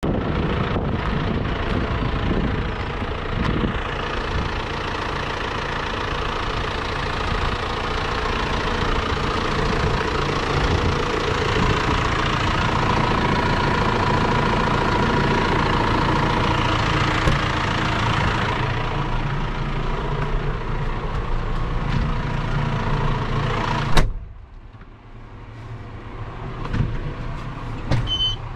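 John Deere 6140M tractor's diesel engine idling steadily, heard from outside the cab. Near the end the cab door shuts with a sharp click and the engine becomes much quieter and muffled, followed by a few small clicks inside the cab.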